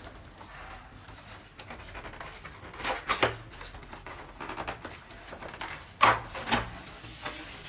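A box of PBT keycaps being handled and opened: soft rustling with two clusters of sharp knocks and clicks, about three seconds in and again about six seconds in, the second the loudest.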